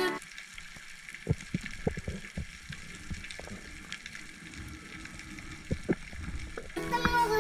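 Underwater ambience heard through a camera housing: scattered soft clicks and knocks over a faint hiss. Music comes back in near the end.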